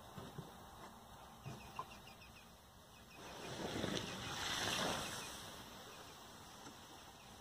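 Water poured onto a campfire's hot ashes, hissing as it turns to steam. The hiss swells about three seconds in and fades again about two seconds later.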